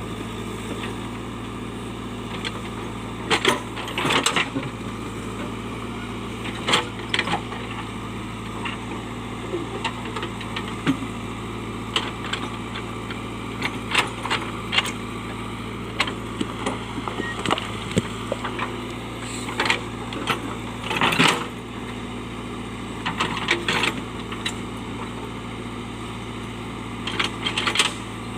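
JCB backhoe loader's diesel engine running steadily, with repeated clanks, knocks and scrapes as the bucket digs into stones and earth.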